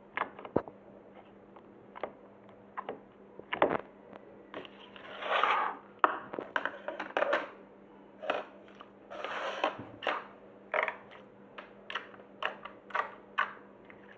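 Glossy slime being squeezed and poked by hand: irregular sticky clicks and small pops, with two longer squelches about five and nine seconds in.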